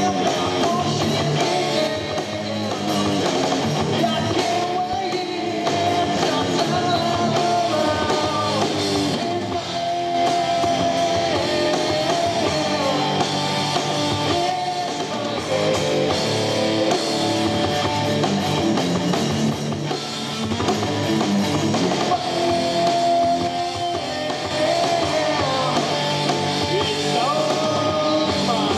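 Live rock band playing, with electric guitar, bass guitar and drum kit under a singer's vocals through a microphone.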